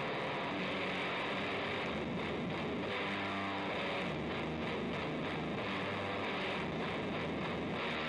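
Electric guitar, a DIY Flying V with a dual-rail humbucker, played through a Grassman Fuzz pedal into a Fender Hot Rod Deluxe on its dirty channel: a dense, hissy wall of fuzz at a steady level with faint held notes underneath.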